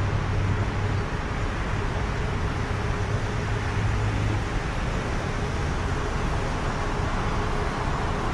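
Steady ambient noise on an elevated light-rail station platform beside a stopped train with its doors open, with a low hum in the first half that fades out about four and a half seconds in.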